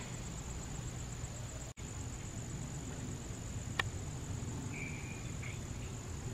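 Faint, steady low rumble of a distant Embraer E190 twin-jet airliner climbing out, under a continuous high-pitched whine. A sharp click comes just before four seconds in, and a short chirp about a second later.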